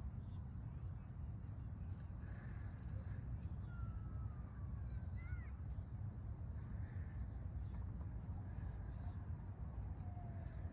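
Outdoor dusk ambience: a low steady rumble, an even high-pitched chirping about three times a second, and a few faint gliding bird calls.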